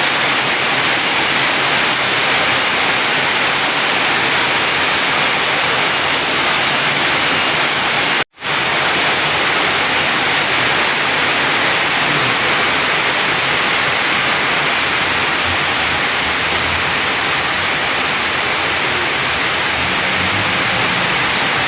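Heavy rain falling steadily: a loud, even hiss that breaks off for a split second about eight seconds in.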